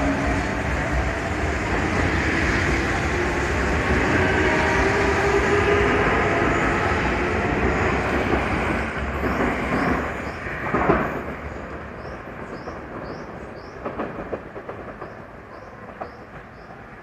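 Odakyu 30000 series EXE electric train pulling away from the platform: its traction motors whine, rising in pitch as it speeds up, over heavy wheel-on-rail noise. About eleven seconds in there is a loud clack, and the noise fades as the train runs off, with wheels clacking over the rail joints.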